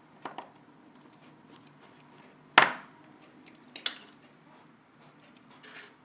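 Small hand tools clicking and tapping against iPhone 4S internal parts during reassembly: a handful of sharp clicks, the loudest about two and a half seconds in and a quick pair just before four seconds.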